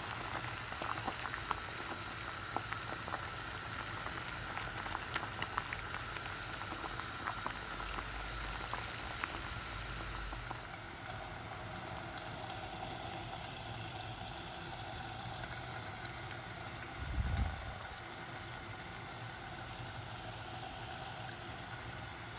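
Tengra fish curry bubbling at a boil in a metal pot: many small pops and crackles over the first half, settling into a steadier hiss. A low thump about 17 seconds in.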